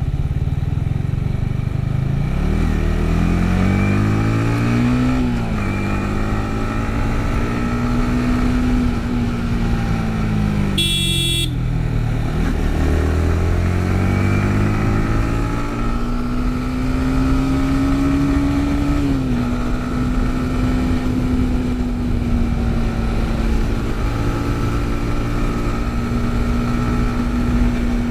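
Yamaha MT-15's 155 cc single-cylinder engine accelerating with rising pitch and shifting up, running steadily, then easing off and slowing before accelerating again and settling into a steady cruise. A short high-pitched beep sounds near the middle, as the engine slows.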